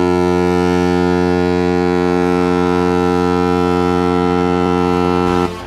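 Ice hockey goal horn sounding one long, steady, low-pitched blast that cuts off suddenly near the end.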